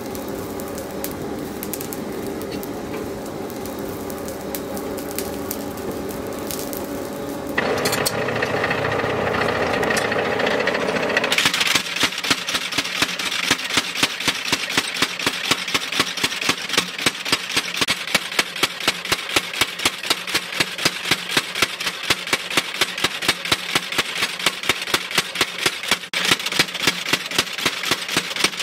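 Motor-driven mechanical power hammer forging a red-hot leaf-spring blank, its ram striking the steel steadily at about three blows a second from about eleven seconds in. Before that there is a steady hum by the forge, then a louder run-up of the hammer's machinery.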